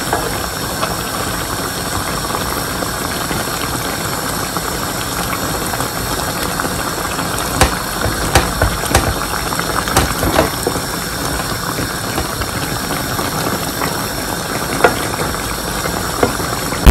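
Curry broth boiling and bubbling steadily in a non-stick pan, with a spatula knocking and scraping against the pan a few times, mostly around the middle.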